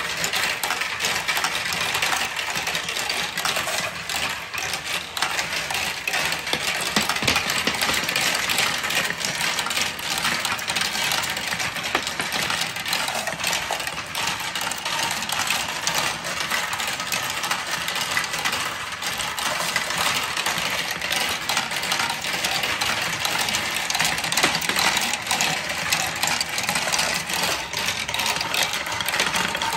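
Many marbles rolling and clattering through a marble run of plastic tubes and wooden tracks: a dense, steady stream of clicks and rattles.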